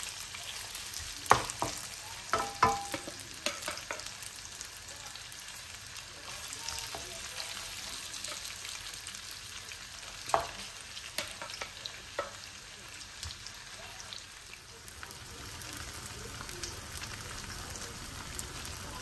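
Chunks of meat sizzling steadily in a non-stick frying pan, with a plastic slotted spatula knocking and scraping against the pan as the meat is stirred and turned. The knocks come in a cluster in the first few seconds and again about halfway through.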